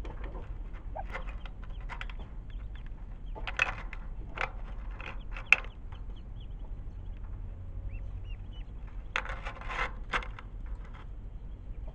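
Ducklings and an adult duck calling in short, scattered bursts, with a denser run of calls near the end.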